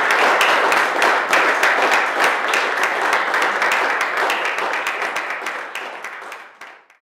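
Audience applauding, a dense patter of many hands clapping that fades away over the last couple of seconds and stops just before the end.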